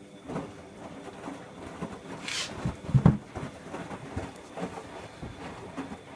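Bosch Logixx 8 washing machine's drum tumbling a load of towels in water, making irregular soft thuds and sloshing. A brief hiss comes about two seconds in, and the heaviest double thump about three seconds in.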